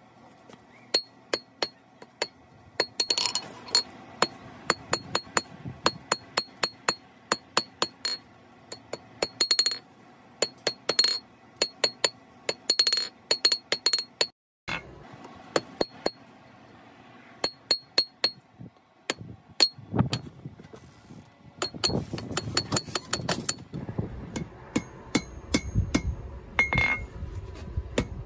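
Hand hammer forging a small piece of hot wrought iron on an anvil: a long run of sharp metal-on-metal blows, about two to three a second, each with a bright anvil ring. There is a brief break about halfway, and from about three quarters of the way in the blows sound heavier and duller.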